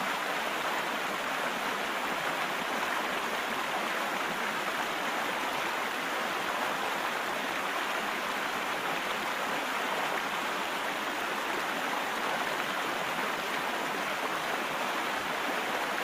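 Stream water running, a steady, even rush that does not change.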